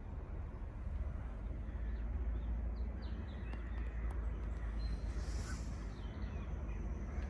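Outdoor ambience at a railway level crossing: a steady low rumble with a few faint bird calls around the middle, and a thin high steady whine that starts near the end.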